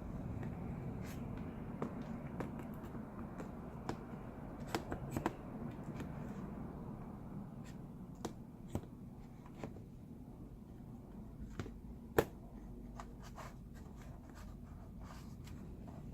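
Scattered light clicks and taps of small metal and plastic laptop parts being handled and fitted, the hinges of a replacement screen being worked into the laptop body, over a steady low hum.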